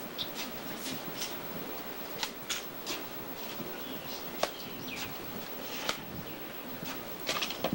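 Masons' trowels scraping and tapping on stone and mortar as they plaster and lay a tomb's stone base: irregular short clicks and scrapes over a steady hiss.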